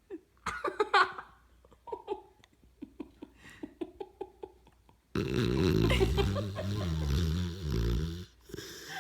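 Sleeping dog snoring: a string of short snorts and clicking breaths, then, about five seconds in, a loud drawn-out snore of some three seconds whose pitch wavers.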